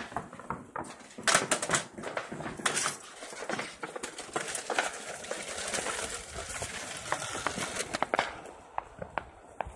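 Firecrackers going off around the neighbourhood: an irregular string of sharp cracks and pops, the loudest about one and three seconds in, mixed with clatter close by.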